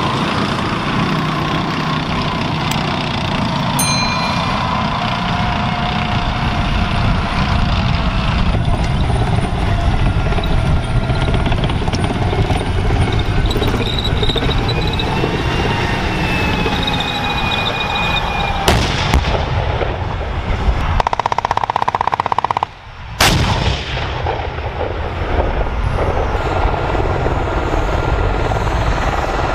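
Live-fire range sound of M1 Abrams tanks: a continuous heavy rumble broken by gunfire, with loud sharp reports about 19 and 23 seconds in.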